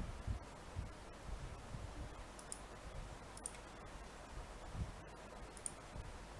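Faint, scattered clicks and soft knocks of a computer mouse being clicked and moved on a desk.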